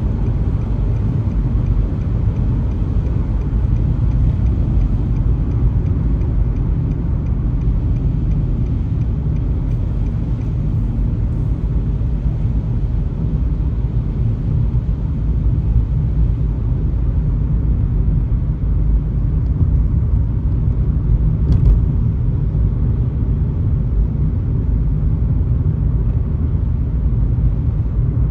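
Car driving on a highway: a steady low rumble of road and engine noise.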